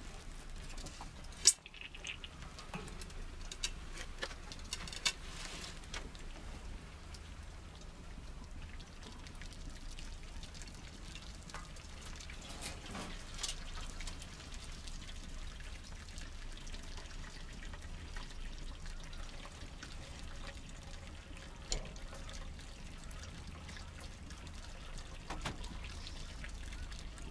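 Hot maple syrup trickling and pouring from the evaporator's draw-off valve through a felt filter into a pot. A sharp click about a second and a half in, with a few lighter knocks later.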